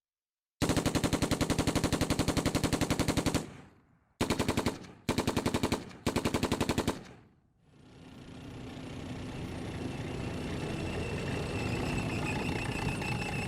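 Rapid automatic gunfire, a machine-gun sound effect: one long run of about three seconds, then three short bursts. From about eight seconds in, a hiss with a faint high steady tone swells up.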